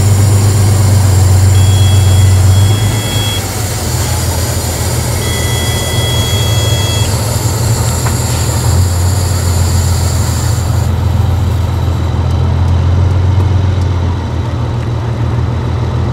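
Heavy off-road trial truck's engine running under load at low revs as the truck crawls over a sandy ridge. It is a steady, loud low drone whose note shifts slightly about three seconds in and again near nine seconds.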